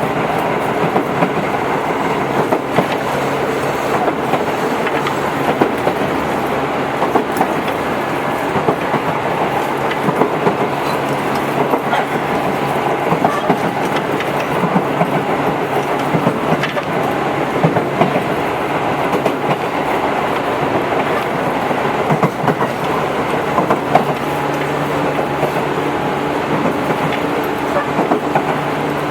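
Tobu 8000 series electric train running at speed: a steady rumble of wheels on rail with repeated rail-joint clicks and a steady traction-motor hum.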